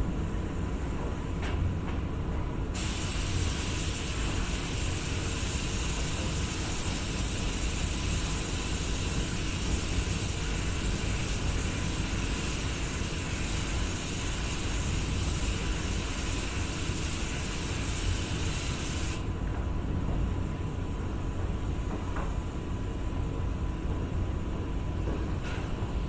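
Gravity-feed paint spray gun hissing steadily with compressed air as it sprays paint; the hiss starts about three seconds in and cuts off sharply about seven seconds before the end. A steady low rumble runs underneath throughout.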